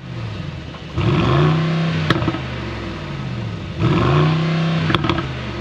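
Mercedes-AMG GLS 63's 4.0-litre twin-turbo V8 heard at the exhaust, revved twice from idle, about a second in and again near four seconds. Each time the revs jump and then sink slowly back toward idle, with a sharp pop as they fall away.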